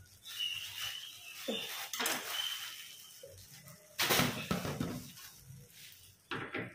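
Plastic wrapping crinkling and rustling as bunches of artificial flowers are unwrapped by hand, with a louder knock of handling about four seconds in and another short one near the end.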